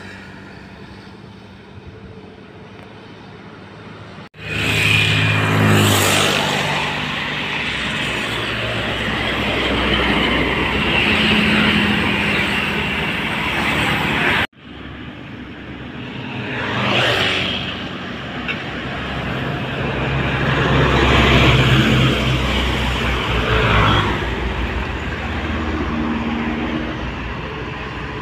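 Road traffic passing close by: cars and motorcycles going past one after another, engine hum and tyre noise swelling and fading with each pass. The first few seconds are quieter, and the sound cuts off abruptly twice before picking up again.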